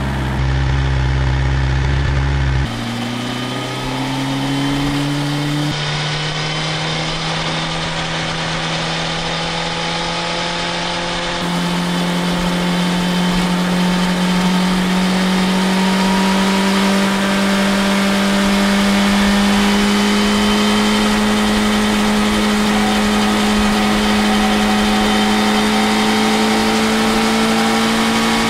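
BMW S1000XR's inline-four engine and exhaust, idling for the first few seconds. After a cut it runs under way at steady cruising revs, its pitch climbing slowly as the bike gains speed.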